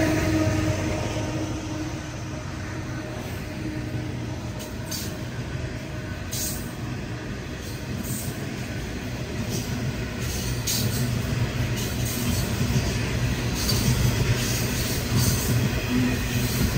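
Coal hopper wagons of a passing freight train rolling by on steel rails: a steady rumble of wheels, with occasional short high-pitched clicks and squeaks from the running gear. The last of the locomotive's horn dies away in the first second or two.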